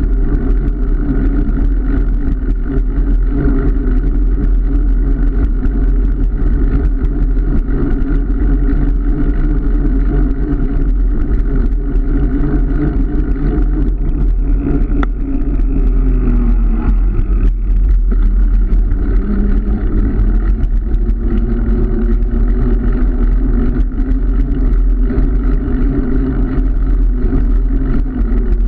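Car engine running steadily on the move over a heavy low road rumble; the engine note falls a little after the middle, then holds steady at the new pitch.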